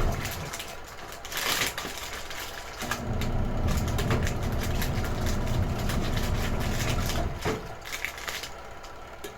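Retro-style washing machine running its wash cycle in spells: the motor hum with water sloshing stops about half a second in, starts again near three seconds, and stops again around seven and a half seconds.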